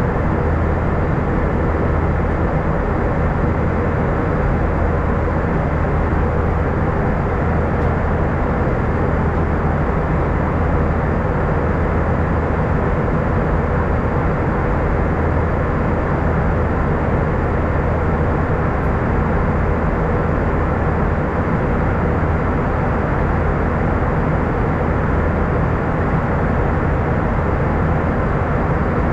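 Airbus A320 cabin noise from a front window seat: a steady rumble of engines and airflow with a constant low hum.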